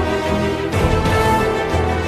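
Background music: held melodic notes over a deep bass.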